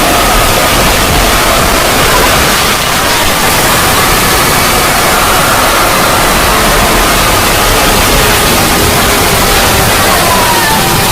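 Loud, steady wall of static-like noise from a distorted logo sound effect, with faint held tones beneath it and one sliding down in pitch near the end.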